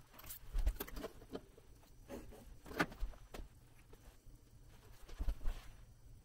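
Pencil scratching on paper in short strokes while tracing around a small round cap, with light taps and a few soft thumps as the ruler and cap are handled on the desk.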